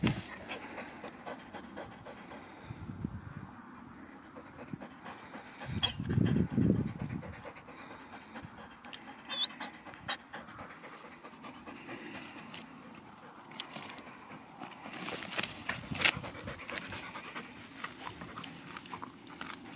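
A lurcher panting hard with its head down a burrow entrance. Scattered short scratches and knocks, which come thicker and louder in the last few seconds, and a low swell about six seconds in.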